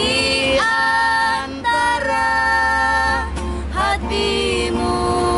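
A woman singing a slow song in long held notes, a few short breaks between phrases, with an acoustic guitar accompanying her. A steady low rumble lies underneath.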